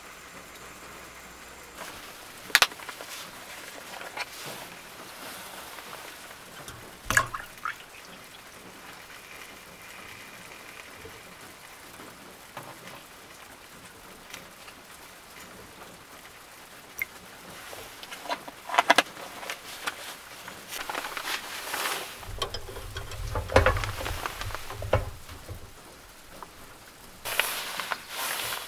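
Handling sounds of camp cooking inside a van: sharp clicks and knocks of a metal mug and utensils, and milk poured from a carton into a titanium mug, over a steady hiss of rain on the van. The knocks come scattered, busiest in the last third along with a low rumble.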